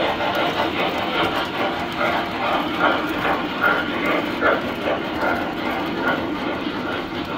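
Three-rail tinplate model trains running: metal wheels rumbling steadily along the track as passenger cars roll past, with a regular pulsing beat over it.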